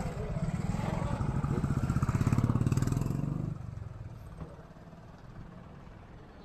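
A small-engined road vehicle passing close, its engine note rising to a peak about two and a half seconds in and falling away at about three and a half seconds. Quieter street noise follows.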